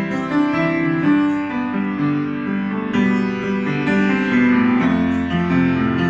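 Upright piano being played by hand: a melody of notes changing every fraction of a second, ringing into one another over held lower notes.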